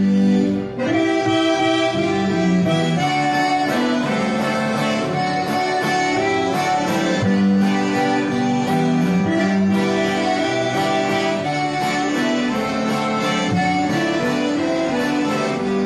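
Acoustic guitar and accordion playing together, the accordion holding chords over steady guitar plucking. This is the instrumental introduction to a gospel hymn before the singing begins.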